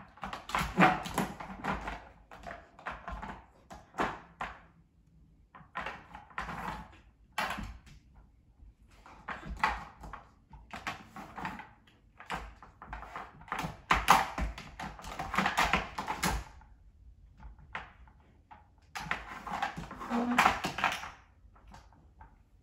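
Plastic dog puzzle toy clattering and knocking against a hardwood floor as a husky puppy paws and noses at it, in bursts of rapid clicks separated by short pauses.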